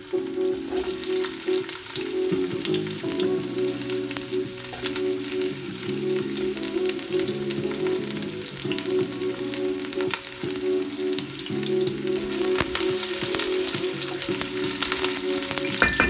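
Carrot pieces sizzling and spitting as they fry in hot soya oil in a pot, with scattered small clicks and crackles.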